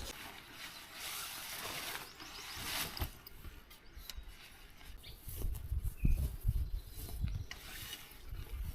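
Sport umbrella being opened and set up: its frame and mechanism clicking and rattling, with low handling thumps in the second half.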